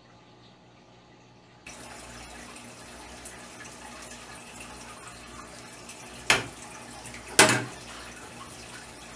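Aquarium water trickling steadily, with two loud splashes in the piranha tank about a second apart. The trickle starts after a quieter opening.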